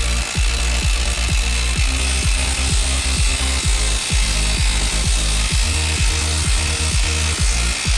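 Electronic dance music with a steady thumping beat, over a Makita 12V cordless impact driver hammering without pause as it drives a long lag screw into a wooden stump.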